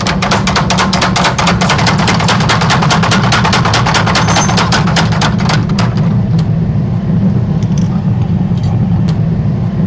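A mechanical power hammer pounding a steel knife blank, about seven blows a second, stopping about six seconds in. A steady low machine hum runs underneath.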